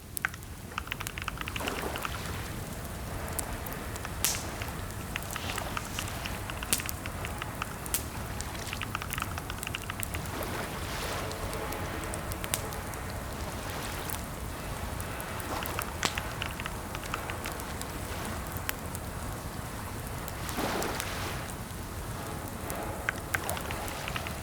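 Steady rain-like hiss with scattered sharp clicks and crackles through it.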